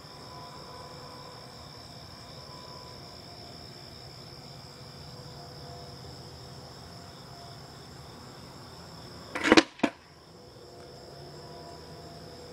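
A steady high-pitched insect trill in the background, broken about three quarters of the way through by two sudden loud rushing bursts a split second apart, the loudest sound here.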